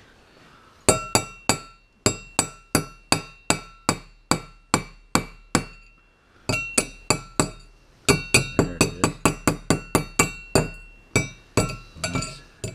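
A pocketknife butt tapping a freshly poured gold bar in a small cast-iron skillet, knocking off the glassy flux crust. Each tap is a sharp metallic clink that rings briefly. The taps come at about two a second, pause briefly midway, then resume in a quicker run.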